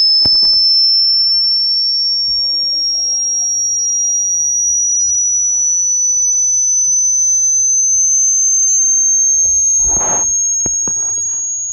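A single loud, high-pitched electronic tone, pure like a test tone, held continuously and rising slowly in pitch. A few faint knocks and a short rustle sound underneath about ten seconds in, and the tone fades near the end.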